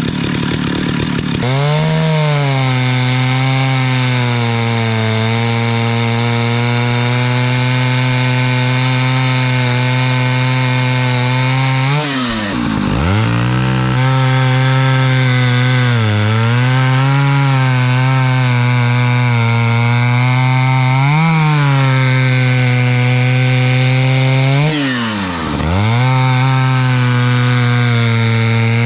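Vintage Stihl 051 two-stroke chainsaw, about 89 cc, cutting birch. It revs high for a moment, then its pitch drops and holds, wavering, as the chain works through the wood under load. Twice the engine speed falls away sharply and comes back up, about halfway through and near the end.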